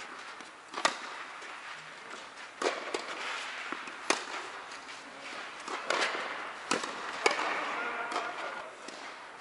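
A tennis ball being struck by rackets and bouncing during a doubles rally, about six sharp pops spaced one to two seconds apart, each echoing in a large indoor hall.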